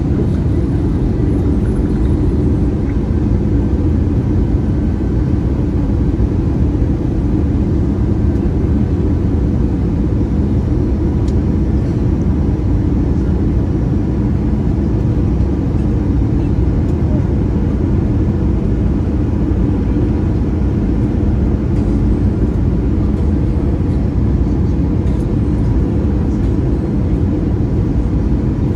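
Steady in-flight cabin noise of an Airbus A320-214, a dense low rumble of airflow and CFM56 engine drone heard from a window seat inside the cabin, with faint steady tones above it and no sudden events.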